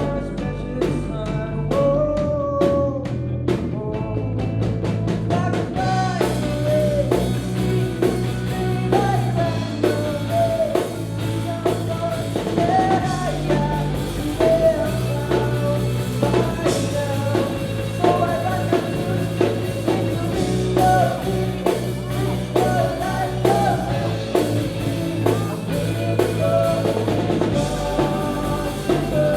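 Live rock band performing a song with a drum kit and a sung lead vocal. The drums build into the full kit with cymbals about six seconds in.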